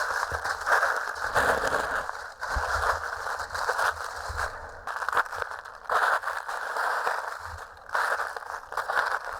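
Footsteps crunching through dry fallen leaves, the crackling crunches swelling with each step.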